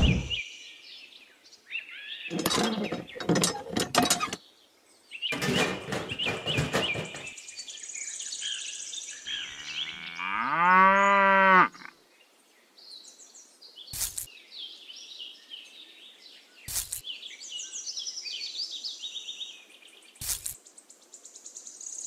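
A cow mooing: one long call about ten seconds in that rises in pitch and then holds. Bird chirps, two stretches of rapid clicking and rattling early on, and three sharp knocks in the second half come with it.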